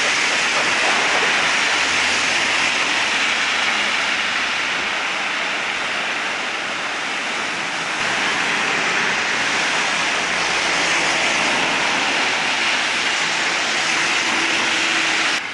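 Traffic on a flooded road: a steady rushing hiss of car tyres through standing water, with engines running low underneath. The sound changes abruptly about eight seconds in.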